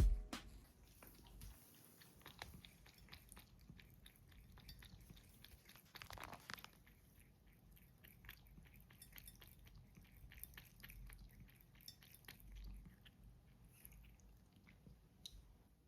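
A cat eating, with faint, irregular chewing crunches.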